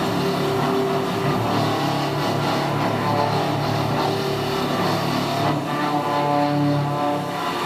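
Background rock music led by electric guitar, with sustained notes that change every second or so.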